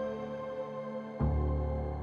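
Soft ambient background music with sustained chords, changing to a new chord a little over a second in.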